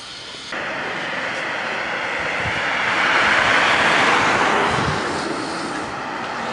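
A road vehicle passing, its tyre and engine noise swelling to a peak near the middle and then fading, over steady traffic hiss. The sound jumps up suddenly about half a second in.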